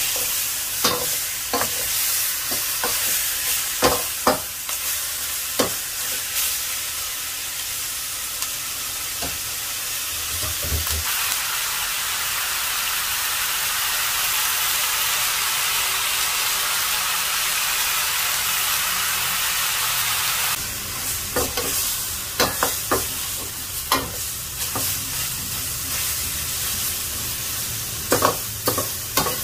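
Pork pieces sizzling as they are sautéed with onion and tomato in a wok, a steady frying hiss. A metal ladle scrapes and clinks against the wok as the meat is stirred, with many sharp knocks at the start and again in the last third, and a stretch of plain sizzling without stirring in the middle.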